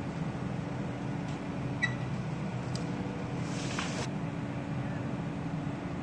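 Engine of a truck-mounted knuckle-boom crane running steadily while it powers the boom and grapple saw, with a short click about two seconds in and a brief hiss near four seconds.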